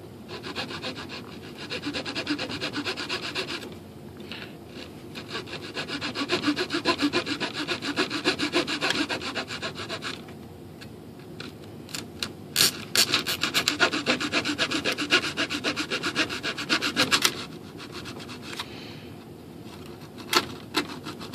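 Hand sawing with a long thin blade through the wooden equipment tray inside a fiberglass glider fuselage: rapid back-and-forth rasping strokes in several runs, with short pauses between them.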